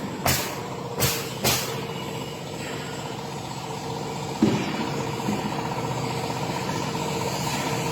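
Three sharp knocks in the first second and a half over a steady engine hum, then a sudden clunk about halfway after which the engine runs a little louder.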